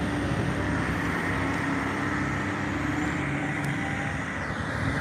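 Diesel motor coaches running on a city street: a steady low engine drone over traffic noise.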